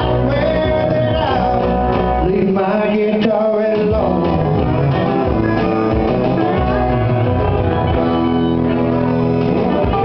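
Live country band playing a song through the hall's PA, with acoustic guitar, other guitars and bass.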